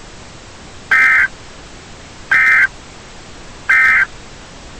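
Three short bursts of EAS digital data tones (SAME AFSK), the end-of-message code that closes an Emergency Alert System broadcast. The bursts are evenly spaced about 1.4 s apart over a low steady hiss.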